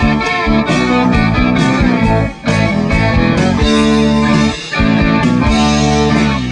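Background music: a guitar-led rock tune with a steady beat.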